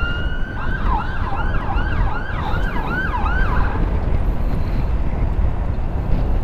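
Electronic escort siren on a motorcycle: a short held tone, then about eight quick rising-and-falling yelps over some three seconds before it cuts off. Steady wind and road rumble runs underneath.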